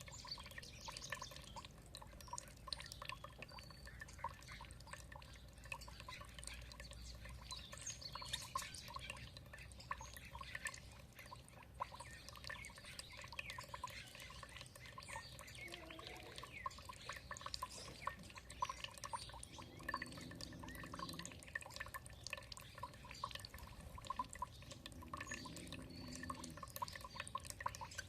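Water dripping and trickling in many small drops, with faint bird chirps over it and two short low-pitched calls in the last third.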